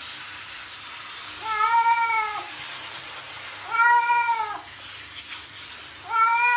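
Cat meowing three times, long drawn-out meows of about a second each that rise and then fall in pitch, while it is showered with a handheld shower head; the steady hiss of the shower spray runs underneath.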